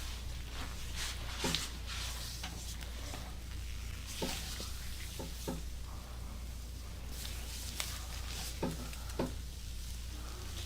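Back massage by hand: hands rubbing and rustling over skin and clothing, with scattered light clicks, over a steady low hum.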